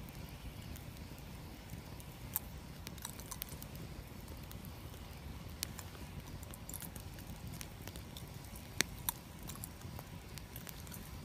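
Wood campfire burning: a low steady rush of flame with scattered sharp crackles and pops from the burning logs, the loudest a quick double pop late on.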